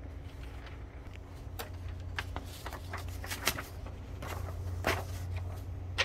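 Heat press tape being peeled off and transfer paper handled: a scatter of short crackles and rustles over a steady low hum.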